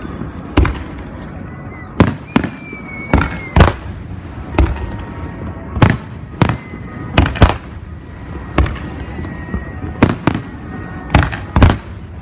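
Fireworks display: aerial shells bursting in a rapid, irregular series of sharp bangs, about one a second, some in quick pairs. A thin falling whistle sounds a couple of seconds in.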